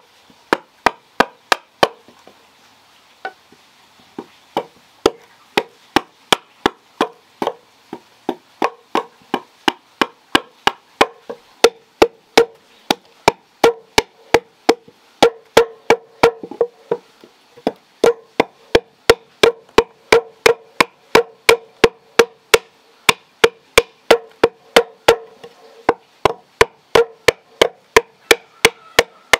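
A large chopping knife hacking at the edge of a round wooden disc, trimming it to shape: sharp woody strikes about two a second, each with a short ringing note, with a short pause about two seconds in.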